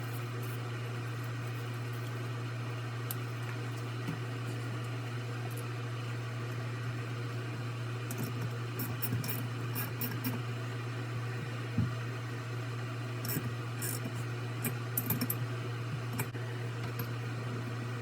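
Steady low machine hum, like a fan or electric motor running, with scattered light clicks and a few soft knocks in the second half.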